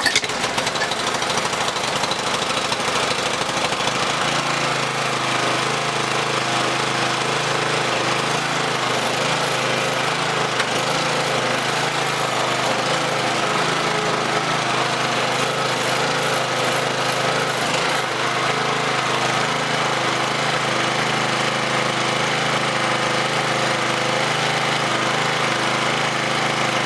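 Honda GCV160 single-cylinder four-stroke engine on a self-propelled walk-behind lawn mower, running at a steady speed.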